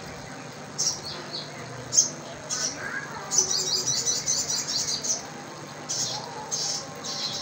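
Caged sogon songbird chirping: sharp high-pitched chirps, a rapid trilled phrase about three to five seconds in, then more chirps.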